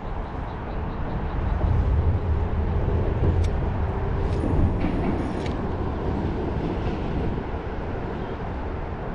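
Wind buffeting the microphone as a low, gusting rumble that strengthens a couple of seconds in and eases off again, with a single click partway through.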